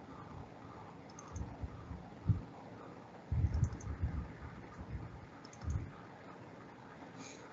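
Irregular clicks and dull taps of a computer mouse and keyboard being worked, picked up through a video-call microphone, with a short cluster of several taps in the middle.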